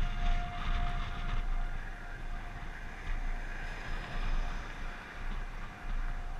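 Outdoor tornado warning siren holding one steady tone that fades and swells back, over wind buffeting the microphone. A pickup truck passes on the highway about four seconds in.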